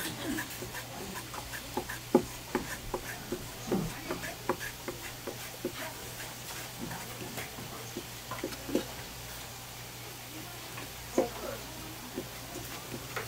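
Large kitchen knife slicing raw squid into thin strips on a wooden cutting board: an irregular run of knocks, a couple a second, with a louder strike about two seconds in and another near the end.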